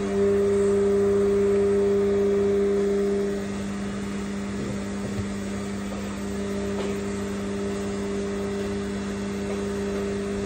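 Steady electric motor hum from lab equipment: it switches on abruptly, runs loudest for about the first three seconds, then settles a little quieter and keeps running evenly.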